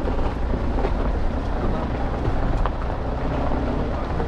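Car driving along a gravel dirt road, a steady low rumble of engine and tyres with wind on the microphone and a few faint ticks.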